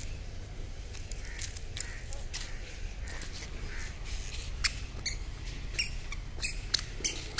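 A toddler's squeaky shoes giving short, high chirps with her steps, a few at first and quicker toward the end, over a low steady background rumble.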